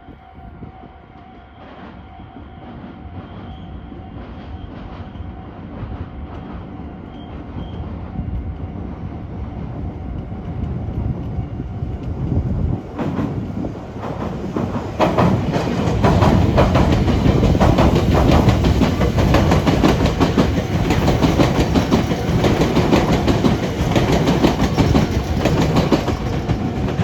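Meitetsu electric train approaching, growing steadily louder. From about halfway through, its wheels pass over the junction's points and rail joints in a rapid, continuous clickety-clack.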